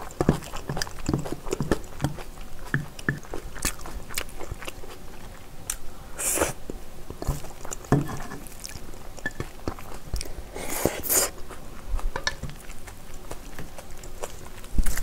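Close-miked eating: wet chewing and mouth clicks from a person eating spicy braised chicken with Chinese glass noodles, with two longer slurps about six seconds in and near eleven seconds.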